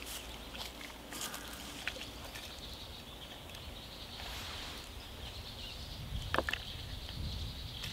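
A hinged wire grill basket is handled on a wooden board: light clicks about one and two seconds in, then a short double clink of the metal wire about six and a half seconds in as it is lifted off the board. Behind it runs a steady high outdoor hiss.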